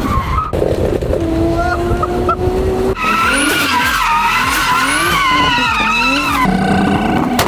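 A car drifting: tyres squealing in long wavering tones over an engine revving up and down. The sound changes abruptly a couple of times, as between cut-together clips.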